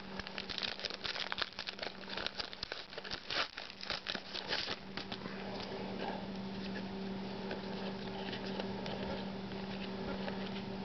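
Plastic wrapper of a trading-card pack crinkling and tearing as cards are handled, in quick rustling crackles for about the first five seconds, then dying away. A steady low hum runs underneath throughout.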